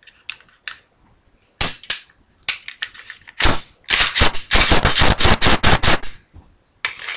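Sharp metallic clicks and clacks of a semi-automatic pistol's slide being worked on its frame during reassembly. A single click comes first, then a quick run of about a dozen loud clacks in the middle, and a couple more near the end.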